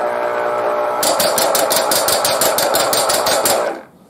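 Black + Decker electric citrus juicer running as an orange half is pressed down onto its spinning reamer: a steady motor hum, joined about a second in by a fast, even rattle of about six beats a second. It stops shortly before the end as the pressure comes off.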